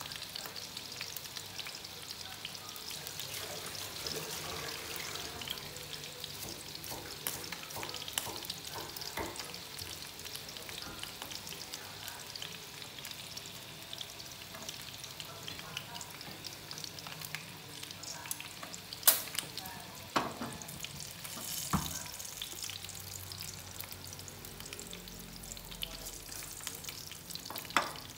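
Tofu cubes and potato strips frying in oil in a pan: a steady sizzle with fine crackling. A few sharp knocks come in the second half.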